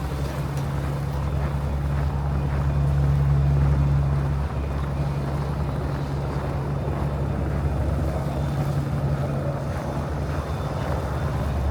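Blizzard wind buffeting the microphone: a steady low rumble with a rushing hiss above it.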